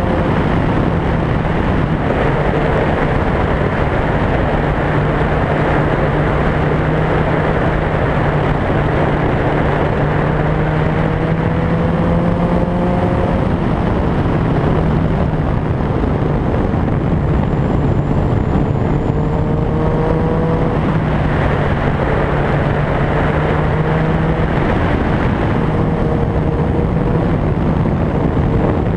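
A motor vehicle at speed, with heavy road and wind noise on the camera. Under it are a steady low hum and a higher engine note that climbs slowly and falls back about four times.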